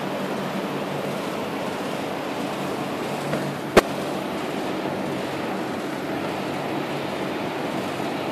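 Steady city background noise with a low hum, typical of distant traffic and rooftop air-conditioning units. A single sharp click cuts through it just before four seconds in.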